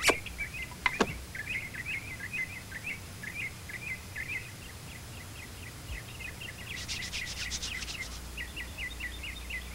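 Birdsong ambience: small birds chirping and twittering steadily. There are two sharp clicks in the first second, and a quick run of higher chirps about seven seconds in.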